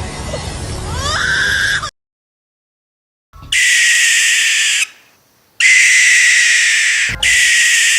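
A bird's wailing, cry-like call with rising glides ends about two seconds in. After a second and a half of silence, a bird gives long hissing screeches, each about a second and a half, three times.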